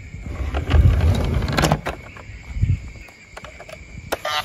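Clattering, knocks and rumbling from a plastic toy ambulance being picked up, turned over and set on a wooden ramp. Near the end a click and the toy's electronic siren starts up.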